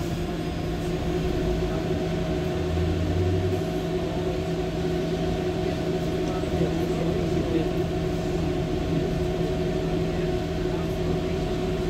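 Mercedes-Benz O405N2 low-floor city bus driving, heard from inside the passenger cabin: a steady diesel engine drone over road and tyre rumble.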